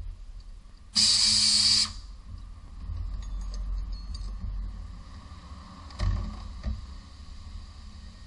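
A burst of compressed air from a pneumatic shop tool, a loud steady hiss lasting about a second. About six seconds in come a sharp metal knock and a lighter one after it.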